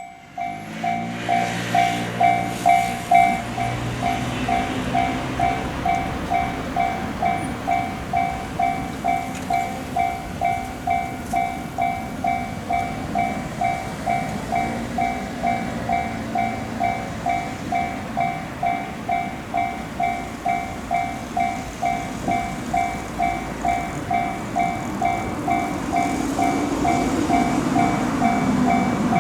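Japanese level-crossing warning bell ringing a steady "kan-kan", about one and a half strikes a second. A train's running noise swells under it near the end as the train approaches.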